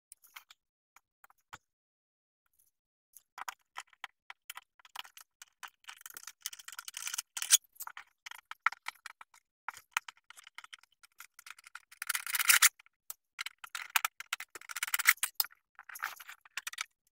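Fast-forwarded disassembly of an EcoFlow River portable power station: a rapid jumble of clicks, rattles and scrapes from tools, screws and plastic casing parts. They start about three seconds in and grow denser toward the end.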